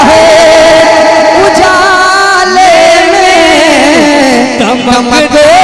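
Devotional singing of an Urdu manqabat: a voice holding long, wavering notes with slides in pitch between sung lines.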